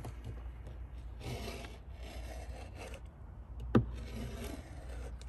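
Scraping and rubbing as a flashing sheet is pushed and slid behind a fiber cement lap siding butt joint, in a few separate strokes, with one sharp click a little before four seconds in.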